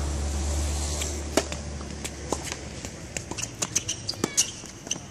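Tennis rally on a hard court: sharp knocks of racket strikes on the ball and taps of shoes on the court. A low rumble under it fades out about two and a half seconds in.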